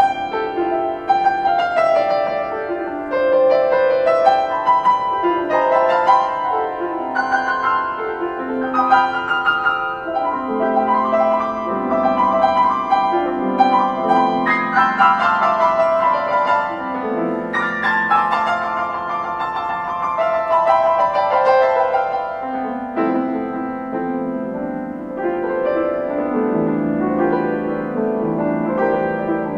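Solo piano music: many notes struck and left to ring over one another in a flowing, continuous passage.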